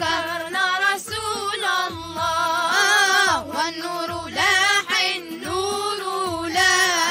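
Children singing an Arabic nasheed in praise of the Prophet, long phrases with pitch that slides and wavers, broken by short pauses for breath.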